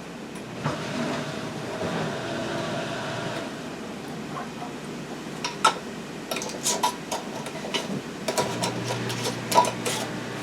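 Glass canning jars and metal utensils clinking and clattering while jars are filled with salsa. A run of sharp clinks and knocks comes in the second half, after a steadier scraping noise.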